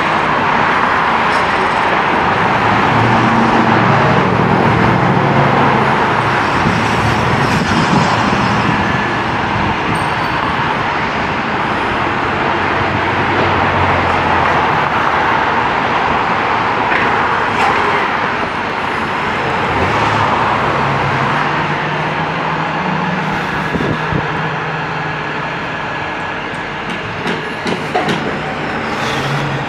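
Heavy utility truck diesel engines running steadily, their pitch stepping up and down a few times.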